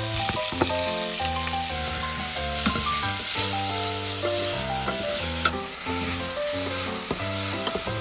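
Cubed pork tenderloin sizzling loudly as it sears in hot oil in a stainless steel pot, stirred with a wooden spatula, with a few sharp clicks.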